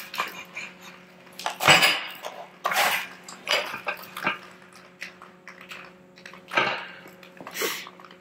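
Metal clanks and rattles from a stripped Volvo XC70 engine block being turned over on its stand: about half a dozen separate knocks and clatters, over a faint steady hum.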